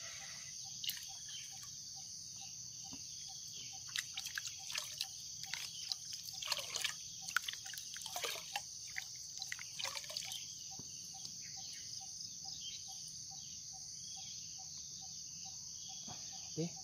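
Water poured from a plastic cup into a bucket of fertilizer solution, splashing and trickling for several seconds from about four seconds in, over the steady high chirring of crickets.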